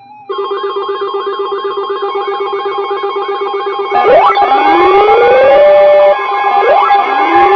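Synthesized emergency alert tones over a broadcast: a steady buzzing chord with a fast warble, joined about four seconds in by repeated rising siren-like sweeps.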